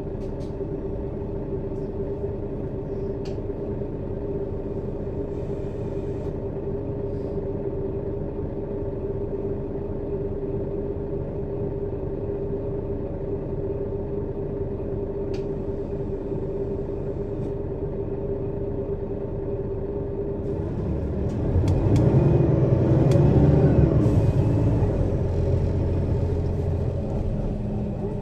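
Mercedes-Benz Citaro city bus engine heard from above the engine bay, running steadily at idle with a constant whine. About 21 s in, it revs up loudly as the bus pulls away, then eases off over the last few seconds.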